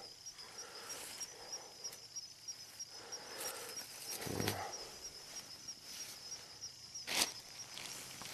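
Insects chirping steadily in a fast, even pulse. About four seconds in there is a short, low voice-like sound, and a little after seven seconds a single sharp click.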